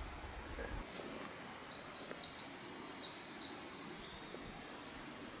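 Quiet outdoor ambience with a small bird's high-pitched, jumbled song of quick stepping notes starting about a second in. A soft low rumble sits under the first second.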